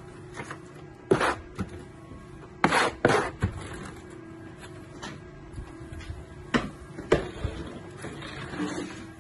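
Plastering trowel scraping and clacking as it pushes mortar into a metal lath wall for the undercoat, with strokes taking mortar off the hand-held hawk. The sounds come as irregular short scrapes and knocks, the loudest about a second in, around three seconds and near seven seconds.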